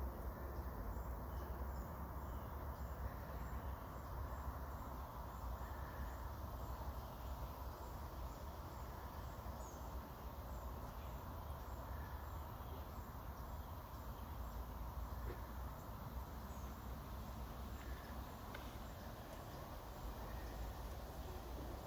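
Outdoor ambience: a steady low rumble with faint, scattered short bird chirps.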